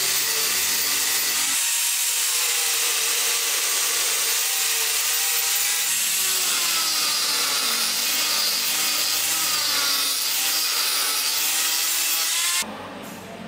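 Electric angle grinder with an abrasive disc grinding wood, a loud steady hiss of grit on wood with the motor's whine wavering up and down as the load changes. It cuts off suddenly near the end, leaving a quieter, lower hum.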